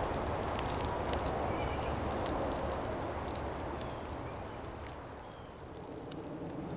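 Woodland snowstorm ambience: a steady rush of wind with many light scattered ticks and a few faint high bird chirps.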